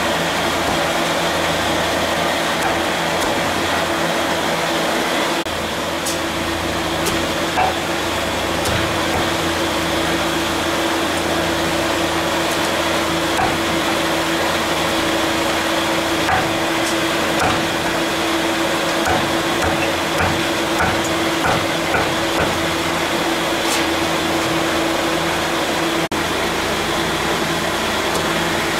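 A steady mechanical hum and hiss with a constant low tone, such as a kitchen fan or burner. Over it come a few scattered knocks and ticks of a cleaver on a wooden chopping block as roast chicken is cut up.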